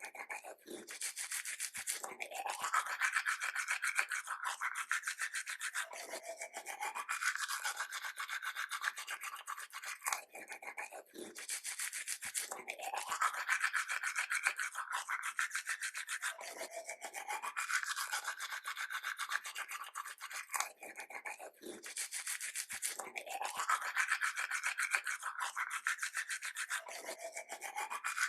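Toothbrush scrubbing teeth in fast back-and-forth strokes, a bristly rasp with short breaks every few seconds.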